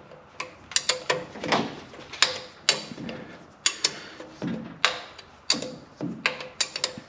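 Wrench clinking and clicking against a metal fastener as it is worked loose by hand, turned and repositioned in short strokes: irregular sharp metallic clicks, a few a second, some ringing briefly.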